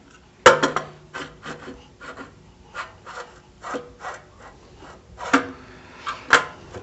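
Recoil starter housing being fitted by hand onto a small Honda generator engine: irregular sharp clicks and knocks with scraping as it is pushed and shifted into position, the loudest knock about half a second in.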